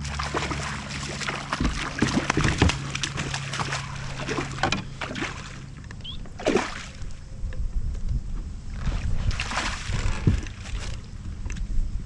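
A hooked fish thrashing at the surface beside a kayak, with repeated irregular splashes and sloshing water, thickest in the first half and again in short clusters later. A steady low hum underneath stops about halfway through.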